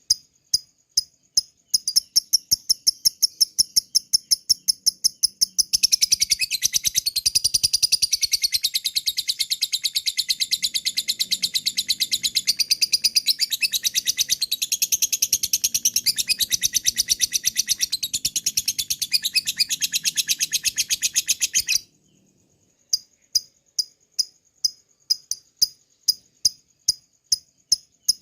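Lovebird calling: a run of rapid high ticks that speed up about two seconds in, then from about six seconds in a long, dense, excited chattering trill (the 'ngekek') lasting some sixteen seconds that stops abruptly. After a short pause the ticking resumes.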